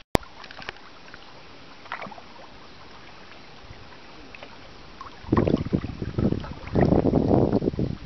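Small boat moving across calm lagoon water: a quiet steady hiss, then from about five seconds in three loud low rushing surges of about a second each.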